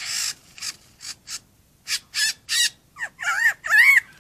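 Male superb lyrebird singing in display: a run of short, harsh rasping calls, then, about three seconds in, rich swooping whistled phrases that rise and fall in pitch.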